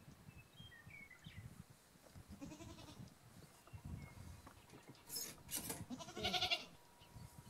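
Farm livestock bleating three times, about two and a half, five and six seconds in, the last call the loudest.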